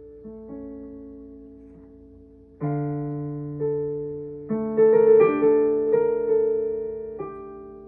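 Solo piano playing slow, sparse notes and chords, each left to ring and fade away. About five seconds in comes a brief cluster of quicker, louder notes, then it thins out again.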